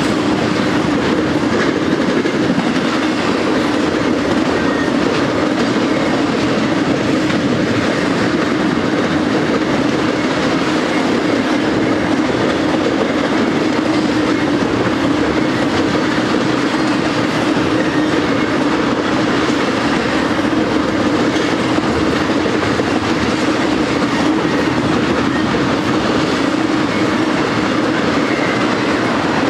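Wheels of a BNSF intermodal freight train's flatcars, loaded with highway trailers, rolling past on the rails with a steady rumble and clickety-clack.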